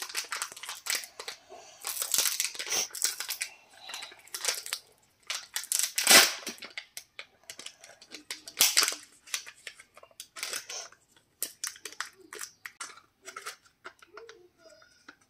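Foil wrapper and thin plastic packaging of a toy-and-chocolate egg being crinkled, torn and peeled open by hand: a run of sharp crackles and rips, with one loud crack about six seconds in.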